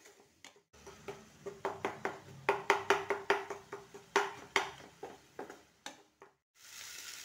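Spatula scraping and knocking against a non-stick kadai as a thick frying masala is stirred: a quick, uneven run of scrapes and taps. Near the end it gives way to a steady sizzle of frying.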